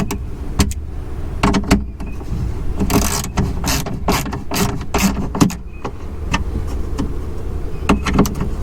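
Irregular metallic clicks and knocks of a hand tool tightening the bolts of a BMW 328i's window-regulator bracket inside the door, run down until snug, over a steady low hum.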